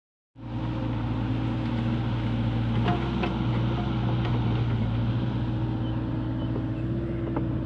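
Kubota U50 mini excavator's diesel engine running steadily under load as the arm and bucket dig, a constant drone with a few faint clicks and knocks about three to four seconds in.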